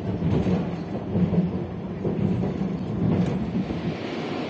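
SM31 diesel shunting locomotive running past with a rake of flat wagons: a steady low engine drone with small swells in level. A little before the end it gives way to an even wind-like hiss.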